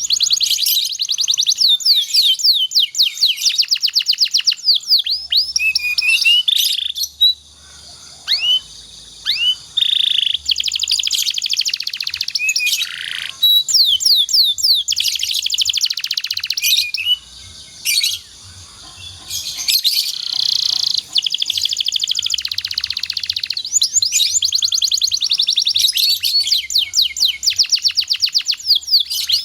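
Domestic canary singing long, rapid trills of high repeated notes, broken by short pauses twice.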